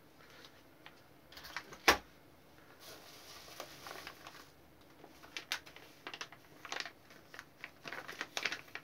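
Clear plastic parts bags and bubble wrap rustling and crinkling in the hands, in scattered short crackles and clicks. A single sharp knock about two seconds in is the loudest sound.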